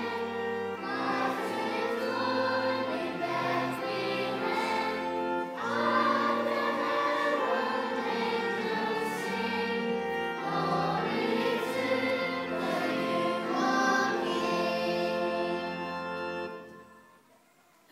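Children's choir singing with held low accompaniment notes underneath; the music stops about a second before the end.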